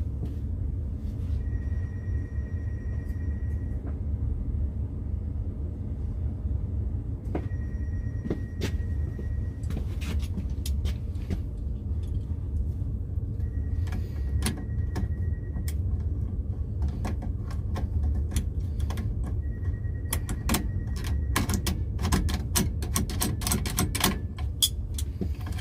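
Small metal clicks and clinks of pliers and hand tools working on a well pressure switch's wiring, growing busy over the last several seconds. Under them runs a steady low hum, and a faint steady tone sounds four times, each about two seconds long and roughly six seconds apart.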